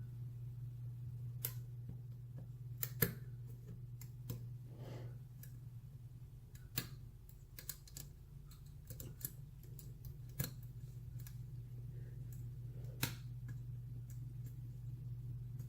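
Irregular small metallic clicks and ticks of a lock pick and tension wrench working the pin stack of a brass padlock, with the core held in a false set. A steady low hum runs underneath.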